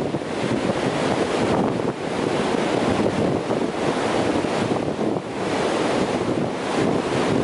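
Ocean surf breaking at the shoreline: a continuous rushing wash of foam and water over sand that swells and eases as the waves come in.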